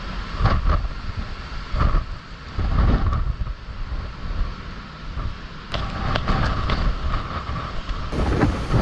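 Typhoon wind gusting and buffeting the microphone, in loud, irregular surges.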